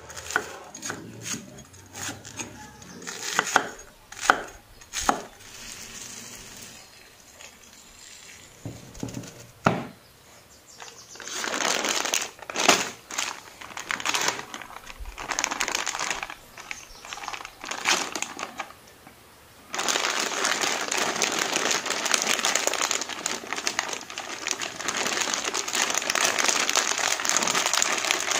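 A kitchen knife cuts through a chicken nugget on a wooden cutting board with a series of sharp knocks. Then a plastic bag of chicken nuggets crinkles in bursts as it is slit open and handled. From about two-thirds of the way through there is a continuous crinkling rustle as the nuggets are poured out of the bag.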